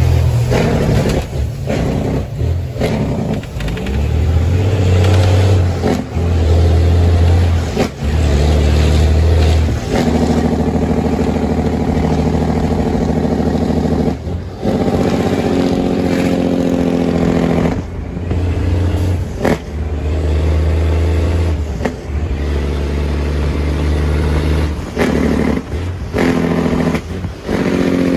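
Semi truck's diesel engine heard from inside the cab while driving, its pitch stepping up and down in stretches of a few seconds, with short dips between them at the gear changes.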